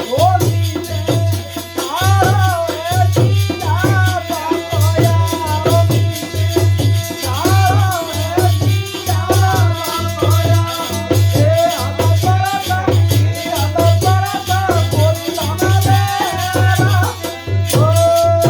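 Holi folk song music: a melody wavering over a steady, regular beat with rattling percussion.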